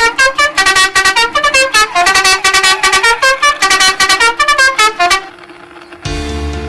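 A fast melody of short, sharply struck pitched notes, like an intro jingle, runs for about five seconds and then stops. Just after six seconds a low, steady, full-bodied tone starts.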